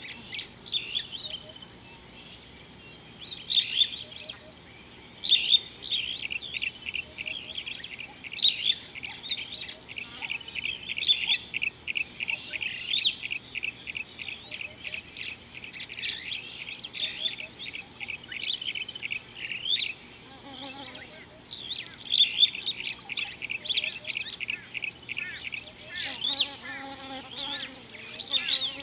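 Small birds chirping in fast, dense runs of short high notes, several a second, pausing briefly now and then. A lower call with a few stacked tones comes in about two-thirds of the way through and again near the end.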